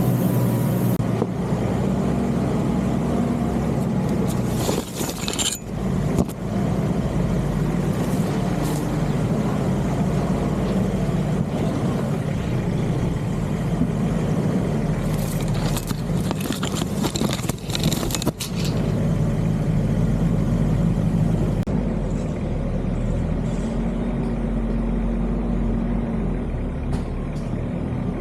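Nissan Patrol Y61 off-road wagon's engine running steadily at low speed while crawling, with short bursts of noise about five seconds in and again around fifteen to eighteen seconds in.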